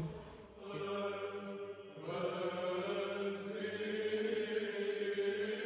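Orthodox chant: male voices holding long, sustained notes over a steady low drone, moving to a new note a few times.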